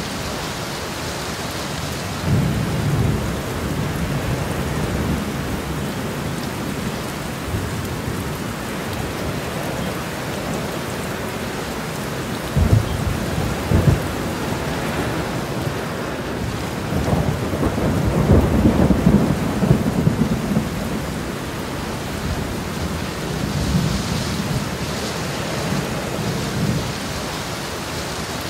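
Steady heavy rain with thunder. Two sharp cracks come about halfway through, then a long rolling rumble a few seconds later, with smaller rumbles near the start and near the end.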